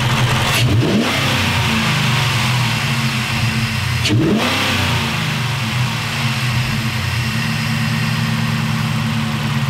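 Jeep Grand Cherokee 4.7 L V8 idling steadily, blipped briefly twice, at about one second and about four seconds in. It runs with a freshly fitted ATI Super Damper and 25% underdrive crank pulley, and sounds a lot smoother.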